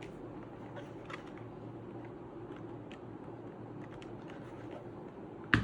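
A few light, widely spaced clicks from the freshly re-capped Redragon K530 Pro mechanical keyboard, then a single loud knock about five and a half seconds in.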